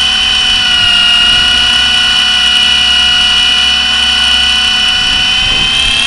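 Blade SR radio-controlled helicopter in flight: its electric motor and rotor give a loud, steady high-pitched whine that dips slightly about a second in and rises a little near the end.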